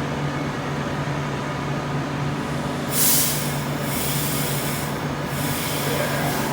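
Train standing or moving slowly at a station platform, with a steady low engine or motor hum. Two bursts of hissing air come about three seconds and five seconds in.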